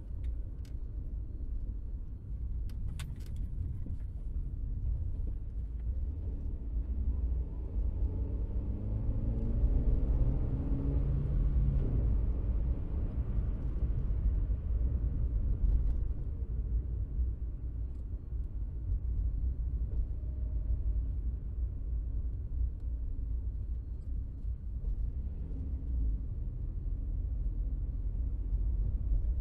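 Steady low road rumble inside a moving car's cabin. Roughly a third of the way in, an engine note rises and then fades back. A few faint clicks sound about three seconds in.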